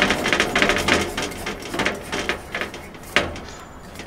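A 1 lb propane cylinder being screwed by hand onto the regulator of an old Coleman two-burner propane stove: a run of quick scraping, clicking strokes of the metal threads and fittings as it turns, then one sharper click a little after three seconds in.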